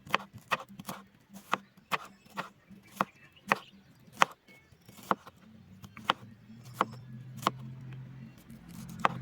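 Knife chopping food on a cutting board: sharp, regular chops about two to three a second, growing sparser about halfway through.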